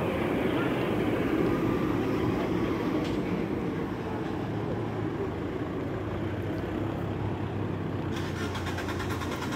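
A lorry drives past on the street: its engine runs with tyre noise, loudest in the first couple of seconds and easing off as it moves away.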